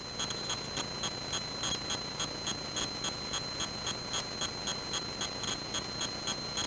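Quick, even electronic beeping, a little more than two beeps a second, over a steady high tone and a low hiss in the cockpit audio.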